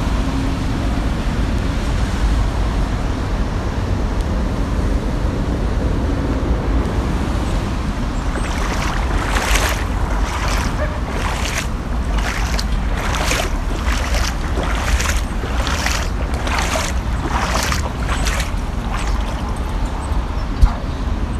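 Wind buffeting an outdoor microphone as a steady low rumble. From about eight seconds in, a run of short hissing noises comes roughly once a second for about ten seconds.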